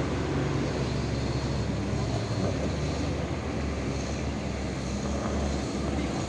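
Large coach bus's diesel engine running under load as it climbs a rough dirt slope and passes close by: a steady low rumble mixed with wind and road noise.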